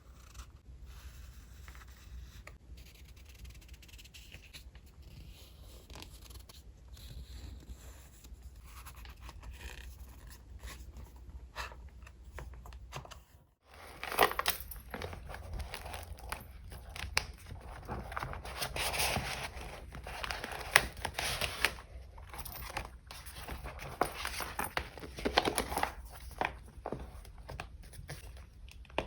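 Paper and sticker sheets being handled: soft taps and light rustles at first, then, after a brief cut-off about halfway, louder paper crinkling and rustling with sharp snips and rips.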